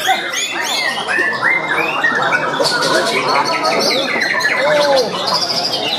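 Many caged white-rumped shamas (murai batu) singing at once: a dense, unbroken tangle of overlapping whistled phrases that rise and fall in pitch.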